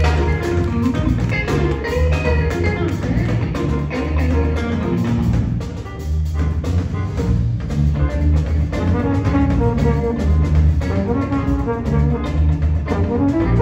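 Jazz big band playing a funk tune: brass and saxophones over a steady bass line and drum kit.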